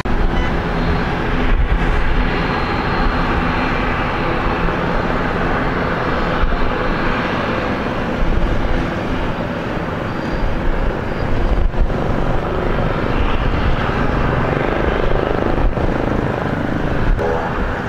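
Boeing 757-200 jet engines at takeoff thrust, heard from a distance as a steady, loud rumble during the takeoff roll and rotation.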